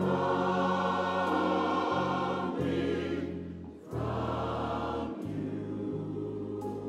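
Gospel choir singing a held, multi-part phrase over sustained low accompaniment notes. The phrase fades just before four seconds in and the choir comes back in on the next phrase.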